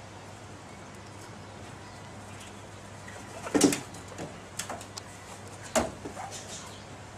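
Several short, sharp sounds from an Australian magpie close to the microphone, starting about halfway through, the loudest first, over a low steady hum.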